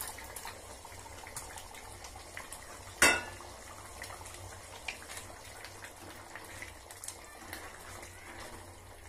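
Spinach gravy simmering and bubbling in a steel pot while paneer cubes are tipped in, with small scattered clinks of steel cookware. One sharp metal clank about three seconds in is the loudest sound, and a wooden spatula stirs the gravy near the end.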